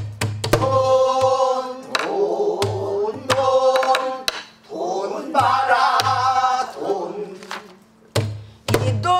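Pansori singing with buk barrel-drum accompaniment: drawn-out sung phrases that bend in pitch, punctuated by deep thumps of the palm on the drumhead and sharp clacks of the stick on the drum's wooden rim.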